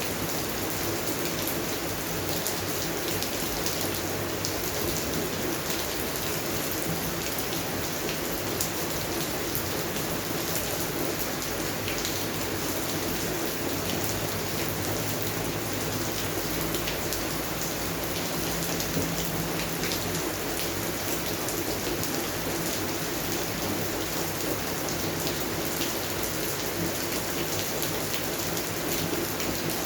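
Steady rain falling on plants, with a constant hiss and many fine drop taps.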